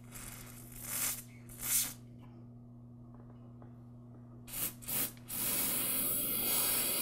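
Aerosol carburetor cleaner hissing out through its thin extension straw into a small trimmer carburetor main jet to clean it. It comes as several short blasts, then one steady spray of about two seconds near the end.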